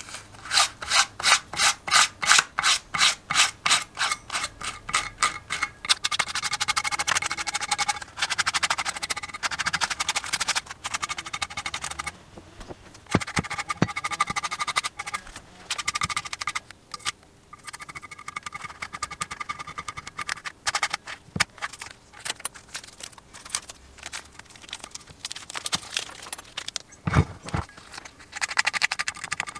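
Craft knife cutting masking tape along the edge of a cast metal engine cover, the blade scraping on the metal in quick even strokes, about three a second, then a denser run of irregular scraping and cutting. A dull knock near the end.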